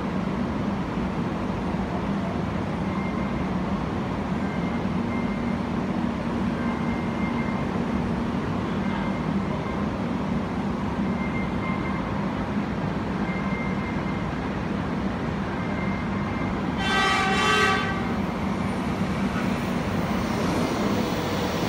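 A Taiwan High Speed Rail train's horn sounds once, a single note of about a second, well into the clip, over a steady train rumble. Near the end the high-speed train slides along the platform.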